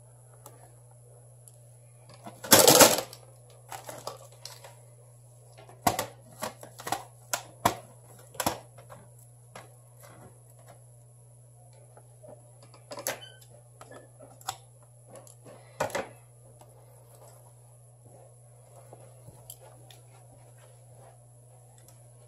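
Small clicks, taps and a short loud rustle from hand tools, tape and phone parts being handled on a workbench while adhesive tape is fitted to a phone, over a steady electrical hum. The rustle comes about two seconds in, a quick run of clicks follows a few seconds later, and single clicks come now and then after that.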